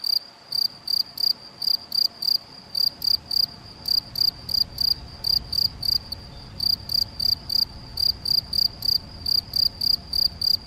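Male field cricket (Gryllus campestris) singing its calling song: a steady series of short, high chirps, about three to four a second, repeated without a break.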